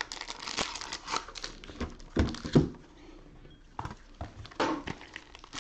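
Plastic wrapping on a trading-card hobby box crinkling and tearing as it is pulled off by hand. There are two louder dull knocks a little past two seconds in and a short lull around the three-second mark.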